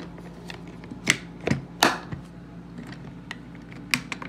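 Black Plano hard plastic pistol case being closed: a series of sharp plastic clicks and knocks, about six in all, as the lid is pressed down and the latches are snapped shut.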